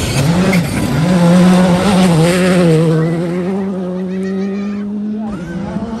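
Škoda Fabia R5 rally car passing on a gravel stage. Its engine note dips and rises over the first second, then holds steady at high revs, loudest about a second and a half in, and changes pitch again about five seconds in.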